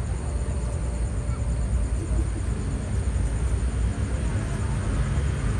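Outdoor crowd ambience: indistinct voices over a steady low rumble.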